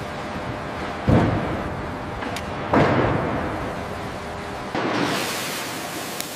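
Two heavy slams, about 1.1 and 2.7 seconds in, each dying away slowly over steady industrial background noise. A hissing rush starts near the end and cuts off suddenly.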